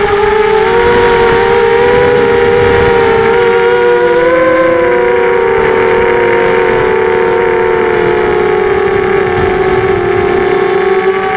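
FPV quadcopter's electric motors and propellers whining steadily, heard from its onboard camera, with several close pitches that briefly spread apart and come back together about four seconds in.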